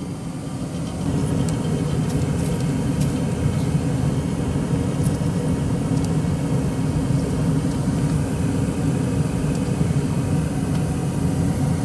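ICP gas furnace running: a steady low rumble and hum that gets louder about a second in and then holds even.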